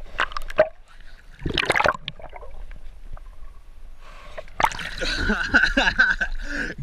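Water sounds from a swimmer's camera: muffled underwater bubbling bursts, then the camera breaks the surface about four and a half seconds in, bringing splashing and gurgling water with a steady high tone running under it.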